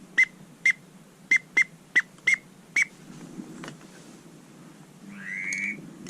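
Duck whistle call blown in eight quick, loud peeps, each dipping slightly in pitch, to work circling teal; a longer rising whistled note follows near the end.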